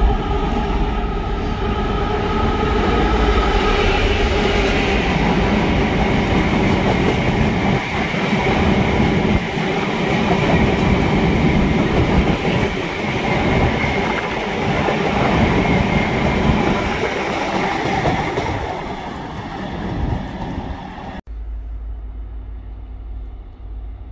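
A Class 66 diesel locomotive, with its EMD two-stroke engine, passes close at speed hauling a long train of cement tank wagons. The engine note is heard at first, then the rapid clatter and rumble of the wagon wheels over the rails. About 21 seconds in, it cuts off suddenly to a much quieter low rumble.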